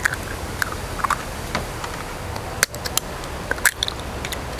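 Eggs being cracked with a metal spoon: a handful of sharp, separate taps and shell cracks, the clearest about two and a half and three and a half seconds in, over a steady low background hiss.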